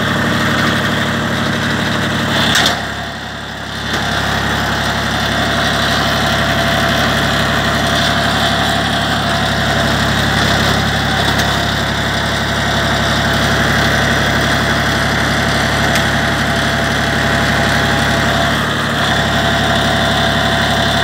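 An Agromehanika AGT 835 TS tractor's diesel engine runs steadily while powering a Krpan 3.5 E forestry winch. A sharp click comes about two and a half seconds in, and the sound drops for about a second before settling back to a steady run.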